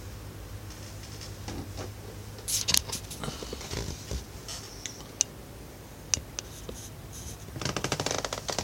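Handling noise from a mic stand being lowered and adjusted: scattered clicks, knocks and scrapes, with a quick run of rattling clicks near the end.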